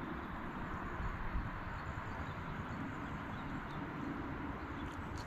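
River water running steadily over stones in a shallow riffle, an even rushing hiss.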